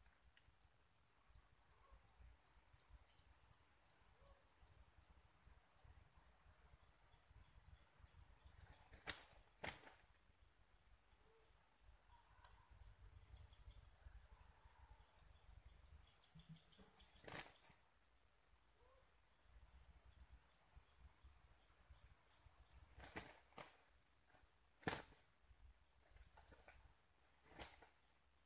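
Faint, steady, high-pitched drone of insects, with a handful of sharp short clicks or knocks spread through it.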